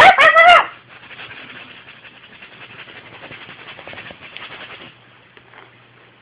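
A pet gives a loud, pitched, frightened cry lasting under a second right at the start, then a few seconds of soft scratchy rustling follow and die away.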